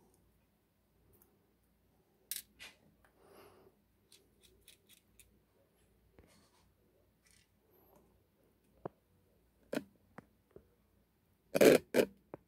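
Small scattered metallic clicks and taps from handling an Abloy Exec disc-detainer lock cylinder, with two louder sharp knocks close together near the end.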